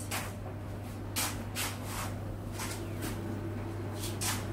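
Soft, irregular shuffling and rustling noises, roughly every half second, as someone moves about, over a steady low hum.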